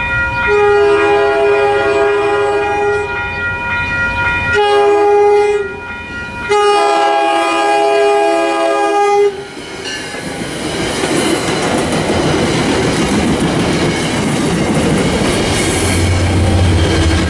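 MBTA commuter train's air horn sounding the grade-crossing signal as it approaches: a long blast, a short one, and a final long one held about three seconds. The train then passes close by with loud rushing wheel and rail noise, and the diesel locomotive pushing at the rear goes by with a low engine rumble near the end.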